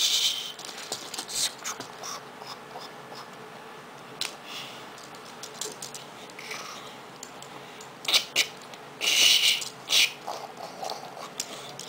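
Small plastic clicks and rattles of an Optimus Prime Transformers figure's joints and panels being folded by hand back into truck mode. A few louder hissing rustles come near the end.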